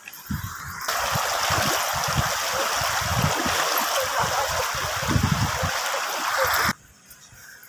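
Shallow rocky stream rushing over stones, a loud steady water noise that starts abruptly about a second in and cuts off suddenly near the end.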